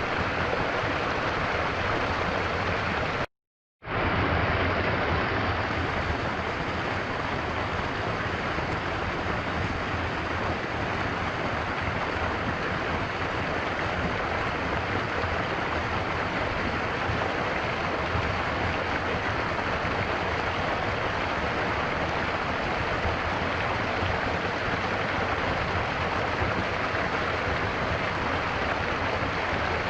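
Stream water flowing in a steady, even wash. About three seconds in it cuts out completely for half a second, then fades back in.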